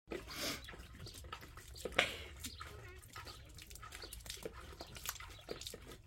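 Shiba Inu playing in a water bowl, a string of irregular splashes and slops of water, the loudest about two seconds in.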